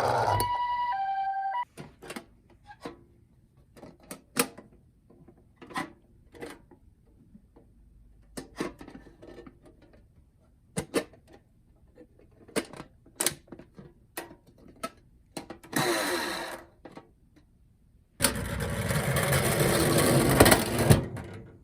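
Toy ambulance minicars clicking and clattering against one another as hands rummage through a box of them, in scattered light knocks. It opens with a short run of electronic tones stepping up and down, and a loud hissy noise lasts about three seconds near the end.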